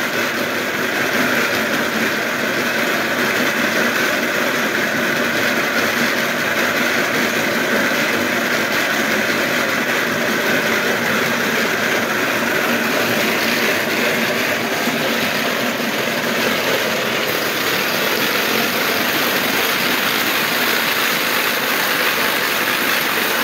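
Self-powered dog treadmill (mill) running steadily as a dog trots on it: a continuous rumbling whir of the curved belt rolling over its rows of wheels.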